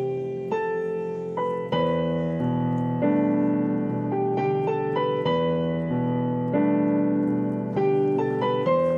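Background piano music: a slow melody of single notes over held chords, a new note sounding about every half second to second.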